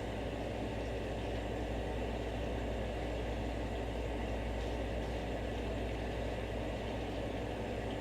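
Steady low machine hum that runs unchanged, like a motor or fan.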